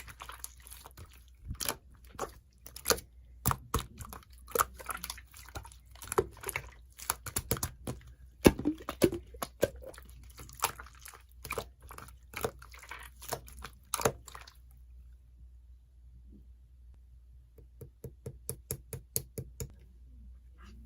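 Hands squishing and poking slime, making many wet clicks and pops. The sound stops about two-thirds of the way through, then a quick run of small clicks comes near the end.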